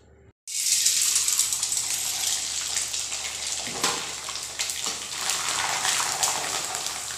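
Sabudana (tapioca pearls) sizzling in hot oil in a wok, the frying noise starting suddenly about half a second in and running on steadily as the pearls puff up.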